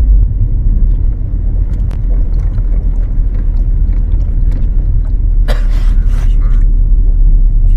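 2012 Ford Focus being driven with the steering swung from side to side, heard from inside the cabin as a loud steady low rumble, with a few light clicks and a brief harsh rustling or scraping noise about five and a half seconds in.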